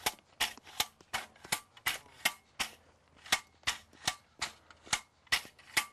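Steel erosion-control blanket staples being driven into hard ground with a rapid series of sharp strikes, about three a second, with a short pause about three seconds in.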